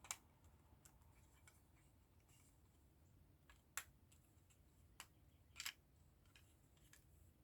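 Faint, sparse clicks of small plastic model-kit parts being handled and fitted together, with a few sharp clicks spread through and a short cluster just past the middle.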